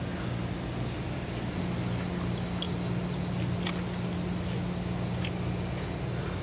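Steady low hum of background machinery, with a few faint clicks and chewing as a person eats from a plastic lunchbox with wooden chopsticks.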